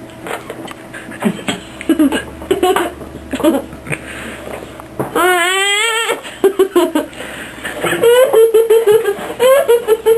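People laughing and giggling, with a wavering high-pitched vocal cry a little over five seconds in. The laughter grows louder and more sustained in the last couple of seconds.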